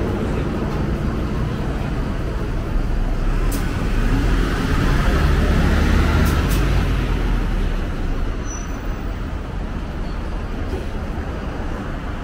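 Street traffic: a vehicle passes close by, its rumble swelling about four seconds in and fading after about eight seconds. A few sharp clicks sound in the middle.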